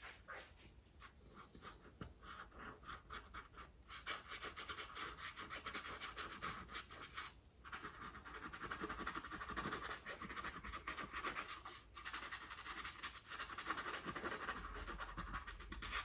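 Paintbrush scrubbing acrylic paint onto a canvas with a dryish brush: rapid scratchy strokes, denser from about four seconds in, pausing briefly twice.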